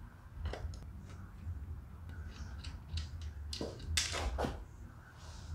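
Scattered metallic clicks and clinks of a socket wrench and loosened connecting-rod cap nuts on a Jeep 2.5L four-cylinder engine block, with a sharper clank about four seconds in. A steady low hum runs underneath.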